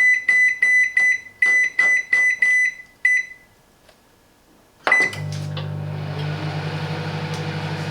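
Silvercrest SMWC 700 D1 microwave oven's control panel giving a rapid run of short, high beeps with button clicks as the cooking time is keyed in. After a short pause, another beep and the oven starts cooking, running with a steady low hum and fan noise.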